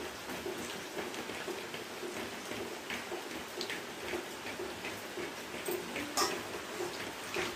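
Steady hiss of heavy rain with a regular ticking about twice a second, and a sharp clink of a steel spoon on a steel plate a little after six seconds in.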